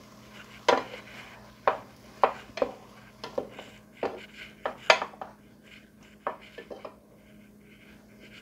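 Spatula stirring broccoli in a square copper-coloured pan, clacking and scraping against the pan about a dozen times at an uneven pace.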